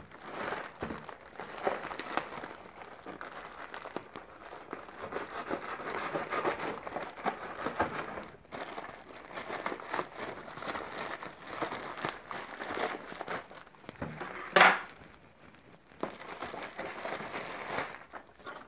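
Plastic courier mailer bag crinkling and rustling as it is cut open with scissors and torn apart, with many small crackles and clicks. One loud, sharp snap stands out about three-quarters of the way through.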